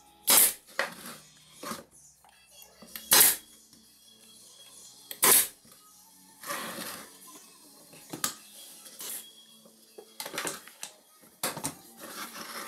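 Three loud, short noisy bursts a couple of seconds apart, then softer scattered knocks and clatter, over faint background music.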